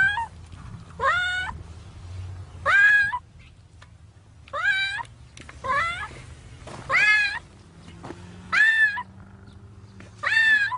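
A cat trapped up to its head in concrete inside a pipe, meowing over and over: about eight loud meows, one every second and a half or so, each rising and then falling in pitch.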